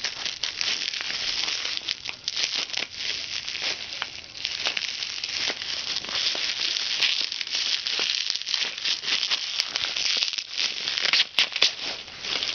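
Plastic bubble wrap crinkling and crackling as it is pulled off by hand, with a couple of sharper, louder snaps near the end.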